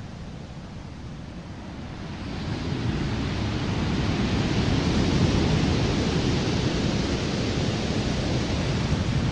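Sea surf and wind, a steady rushing noise that swells about two seconds in and then holds.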